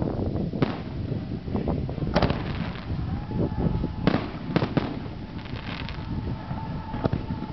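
Aerial fireworks from a consumer cake bursting overhead: several sharp reports at uneven intervals, over a steady low rumble.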